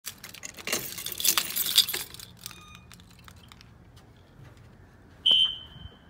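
A ring of keys jangling as a key is worked at a Bosch fire alarm pull station's lock. About five seconds in comes one short, loud, high alarm tone, a System Sensor SpectrAlert Classic horn strobe sounding briefly during a walk test, with a ringing tail.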